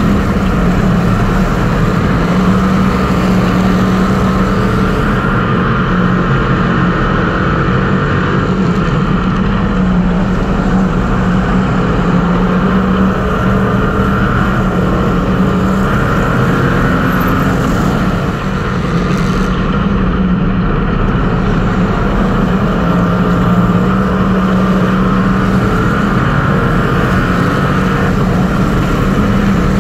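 Street stock race car engine running hard at steady high revs, heard from inside the car's cockpit over the din of the cabin.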